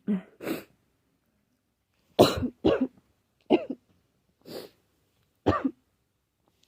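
A person with a cold coughing and clearing their throat in a string of about seven short, separate bursts.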